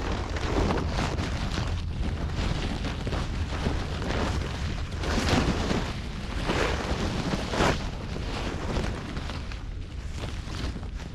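Small sea waves washing onto a rocky shore in several rushing swells, the strongest about five and seven and a half seconds in, over a steady low rumble of wind buffeting the microphone.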